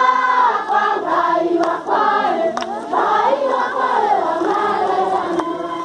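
A large crowd of men, women and children singing together as they walk, many voices in one song, with a few sharp clicks through it.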